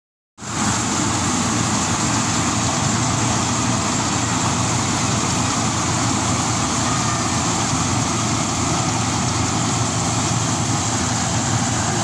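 Rice combine harvester running steadily under load as it cuts rice: its engine and machinery make an even drone with a constant hiss. The sound cuts in abruptly about half a second in.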